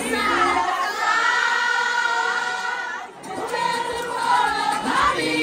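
A crowd singing along, many voices together, to a song played over a concert sound system. The deep bass drops out shortly after the start, and the sound dips briefly about three seconds in.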